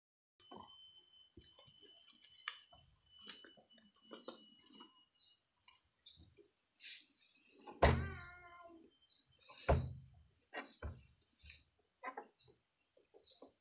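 Rustling and snapping of grass, ferns and leafy branches as a person pushes through them and pulls at the plants, with two loud thuds about eight and ten seconds in. A high chirp repeats about three times a second behind it.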